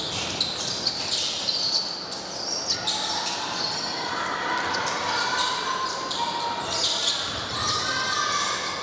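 Basketball game on a hardwood gym floor: the ball bouncing as it is dribbled and passed, and sneakers squeaking in short, high chirps.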